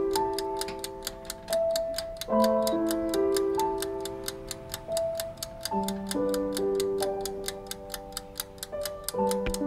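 Background piano-like music over a steady clock-like ticking, about four ticks a second.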